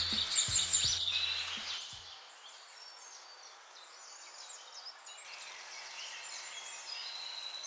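Small birds chirping and twittering, with background music fading out about two seconds in.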